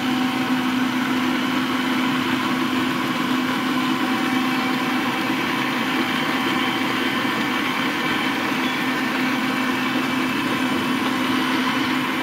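Frigidaire stand mixer running at a steady speed, its motor giving a steady humming whine as the beater mixes cream cheese and vanilla extract in the stainless steel bowl.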